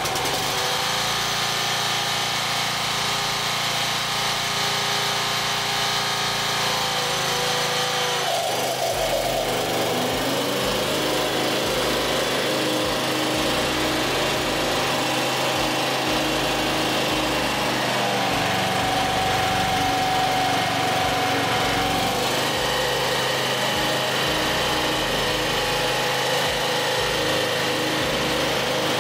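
Kawasaki engine of an MTD Pro 48-inch walk-behind mower running steadily, its speed shifting about eight seconds in and again around twenty seconds in.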